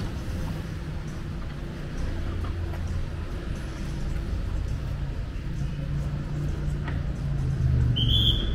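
City street traffic: motor vehicle engines running with a steady low hum, and a brief high-pitched tone about eight seconds in.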